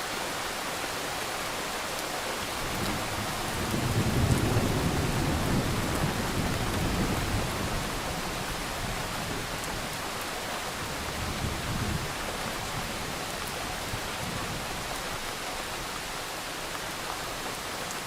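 Thunderstorm: steady rain hissing, with a roll of thunder that builds a few seconds in, peaks briefly and dies away over several seconds. A fainter rumble follows later.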